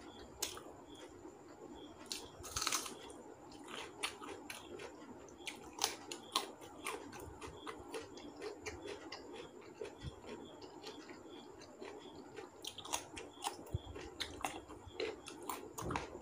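Close-up eating sounds: wet chewing and lip smacks, with the soft squish and clicks of fingers mixing rice and curry on a steel plate. Short irregular clicks come all the way through.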